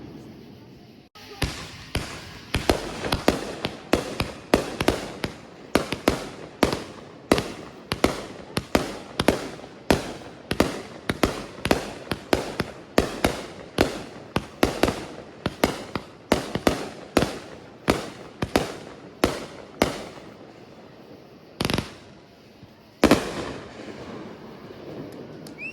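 Fireworks going off in a rapid barrage of sharp bangs, about two to three a second, each trailing off briefly, then two last bangs a second or so apart near the end.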